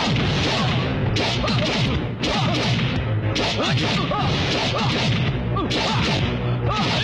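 Dubbed film fight sound effects: a rapid string of whooshes and whip-like swishes, roughly one every second, with whacks among them.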